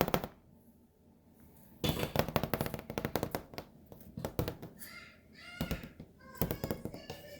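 A burst of knocks, taps and rattling, then a few short high-pitched cries in the second half.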